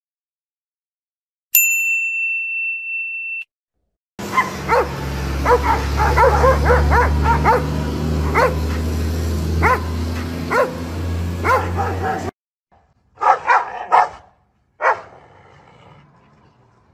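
A steady high electronic beep lasts about two seconds. Then a Doberman barks again and again over a low steady rumble, breaking off suddenly. After a short gap, a few more loud dog barks follow.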